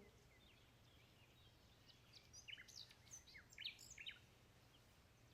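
Near silence with faint bird chirps: a scattering of short, high chirps in the middle of the pause.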